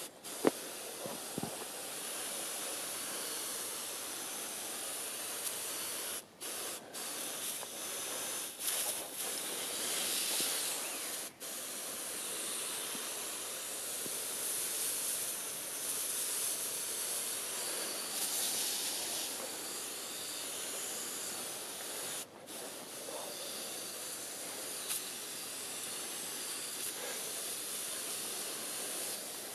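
Garden sprayer wand hissing as it mists liquid P/K fertilizer onto bonsai foliage. The spray is steady, cutting off briefly a few times as the trigger is released.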